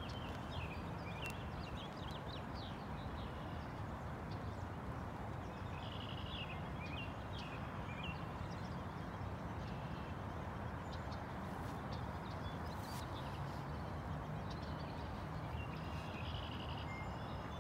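Birds chirping and singing in short repeated calls over a steady low rush of outdoor background noise.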